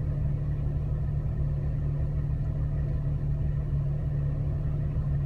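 A vehicle engine running steadily at low revs, a constant low hum with no revving.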